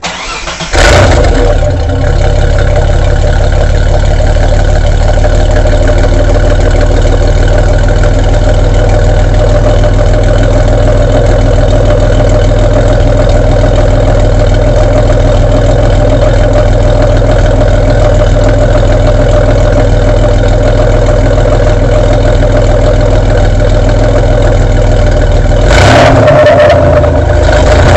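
Exhaust of a Mitsubishi Pajero's 3.0-litre 12-valve V6, heard right at the tailpipe: the engine starts up and flares briefly about a second in, then idles steadily. It is blipped with a short rev near the end.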